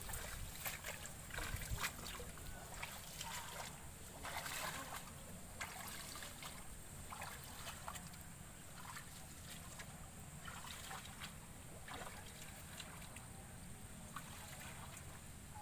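Legs wading through a shallow ditch thick with leafy water plants: irregular rustling of leaves and stems with small splashes and sloshes of water.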